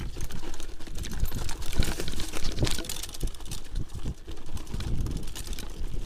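Mountain bike rattling over a rough dirt trail at speed: a dense run of irregular clicks and knocks from the frame and parts over bumps, with tyre noise and a steady low rumble on the microphone.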